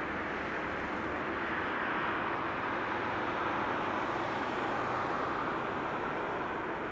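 Jet engine noise from an ANA Airbus A380's Rolls-Royce Trent 900 engines: a steady rush that swells slightly a couple of seconds in and eases a little near the end.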